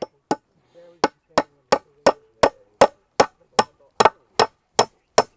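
A hammer striking in a steady rhythm, about fourteen sharp blows at nearly three a second after a brief pause following the first two, with a faint ring between blows. The blows are work on the wooden H-brace of a fence corner.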